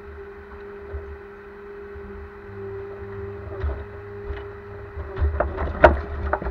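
Ponsse Elk forwarder running, its engine and hydraulics giving a steady hum with a held tone while the crane works a grapple load of logs. From about five seconds in comes a run of knocks and clatter, one sharp knock standing out near the end.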